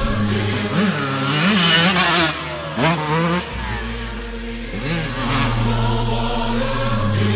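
Two-stroke Yamaha YZ125 dirt bike with a 144 big-bore kit revving up and down several times, over steady background music.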